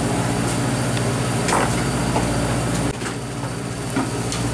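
A fishing boat's engine running with a steady low drone, with a couple of brief knocks about one and a half and four seconds in.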